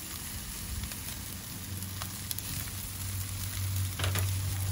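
Chicken pieces sizzling on a barbecue grill grate, a steady crackling hiss, with a low hum growing louder over the second half.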